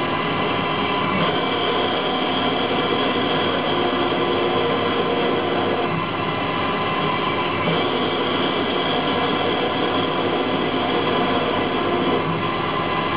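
Emco Turn 120 CNC lathe running under Mach3 control, its spindle and feed motors giving a steady whine while the tool turns a small workpiece. The higher tones change about a second in and again near eight seconds in.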